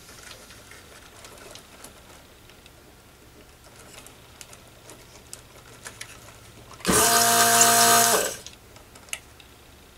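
Electric vacuum desoldering tool's pump running steadily for about a second and a half, sucking molten solder off a capacitor's leads on a circuit board. Faint small clicks of handling come before it.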